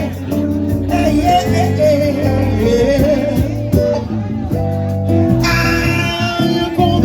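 Live band playing Latin-style music with a singer over guitar and bass.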